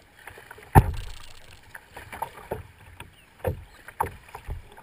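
Water splashing and slapping against a kayak's hull close to the microphone, a run of irregular splashes every half second to a second, the loudest about a second in.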